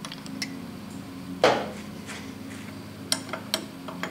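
Sharp metallic clinks of small steel parts and tools: one strong clink about a second and a half in, then lighter clinks near the end as small parts are picked out of a steel magnetic parts tray. A steady low hum runs underneath.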